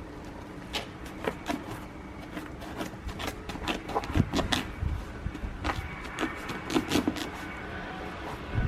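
Snow crunching in short, irregular crisp bursts, several a second, starting about a second in, over a steady low outdoor rumble.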